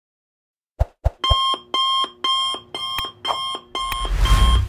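Countdown timer's electronic alarm-clock ring going off, starting about a second in after a couple of clicks. It repeats in rapid ringing bursts, about two a second. Near the end a whooshing burst with a low rumble cuts across the ringing.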